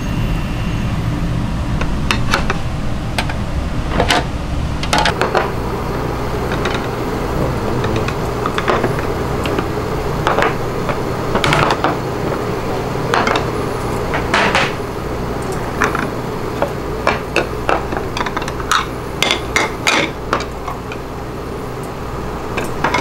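Sharp clinks and knocks of steel tongs and ceramic side-dish bowls as dishes are served and set down, coming thicker in the second half, over a steady low hum.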